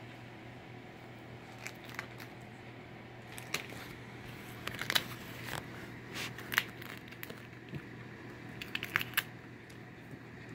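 Jack Russell terrier cracking a peanut shell with its teeth: scattered small cracks and crunches, bunched about halfway through and again near the end.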